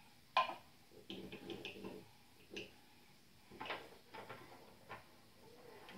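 Light clicks and knocks of wooden toy train pieces being handled: a sharp knock about half a second in, a quick run of small clicks a second later, then a few scattered ones.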